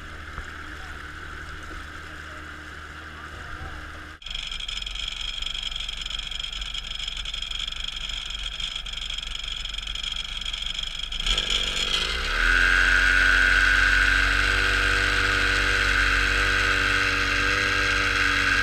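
25 hp Evinrude outboard motor running steadily, pushing a pontoon boat through the water. About eleven seconds in it speeds up, its pitch rising over about a second, then holds a louder, higher steady note.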